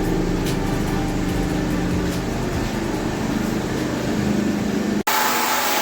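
Steady machinery hum made of several low tones on a construction site. About five seconds in it cuts off abruptly and gives way to a different, hissier noise.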